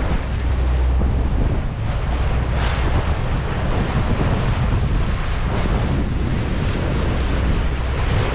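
Wind buffeting the microphone and water rushing along the hull and wake of a motor yacht underway, over the steady low drone of its Cummins diesel engine.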